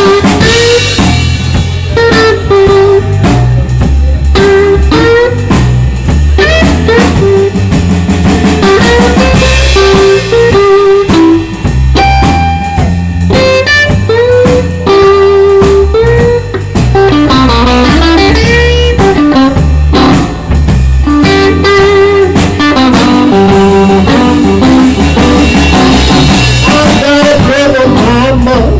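Live electric blues band playing the instrumental opening of a song: a lead electric guitar plays bent-note blues licks over bass guitar and a drum kit. A voice comes in singing near the end.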